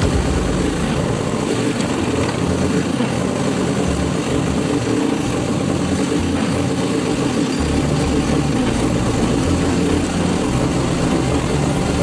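Diesel engine of a backhoe loader running steadily while the front loader bucket works, heard from the operator's cab.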